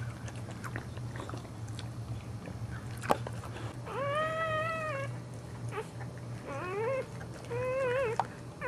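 Newborn boxer puppy crying: three high, mewling cries in the second half, each rising in pitch and then wavering for about half a second to a second. A single sharp click comes about three seconds in.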